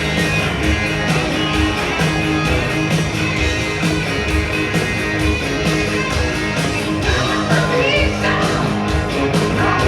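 Hard rock band playing live: distorted electric guitars, bass and drums keeping a steady beat, with a voice singing from about seven seconds in.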